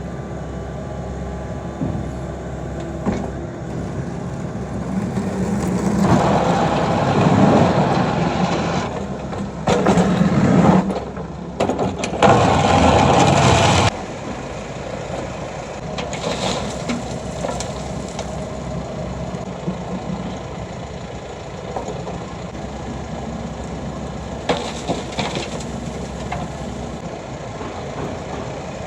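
Kobelco SK85 excavator's diesel engine running steadily. It gets much louder and noisier for several seconds in the middle, then drops back suddenly.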